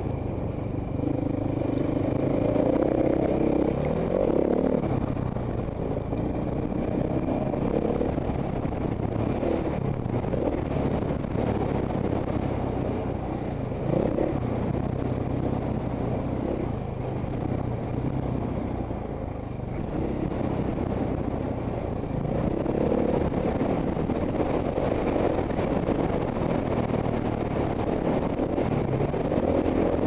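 Off-road dirt bike engine ridden on a dirt trail, revving up and easing off again and again as the rider works the throttle through the trail sections.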